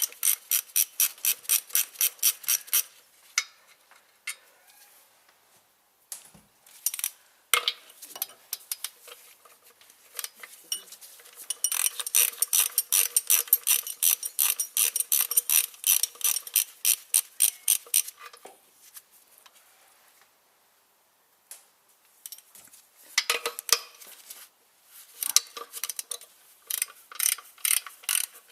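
Hand ratchet clicking in quick runs of about six or seven clicks a second, with pauses between runs, as the bolts holding the clutch pressure plate cover are undone. A few separate metal knocks fall in the gaps.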